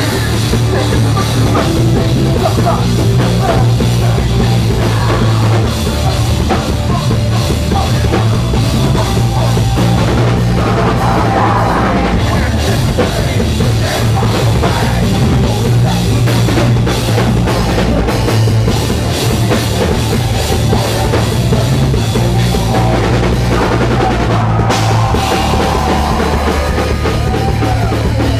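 A live metal band playing loud and dense, with drum kit, heavy bass and distorted guitars.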